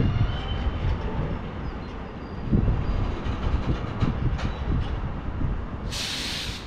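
Train moving on the track: a steady low rumble with a few wheel clicks and faint squealing. A short burst of hiss comes near the end.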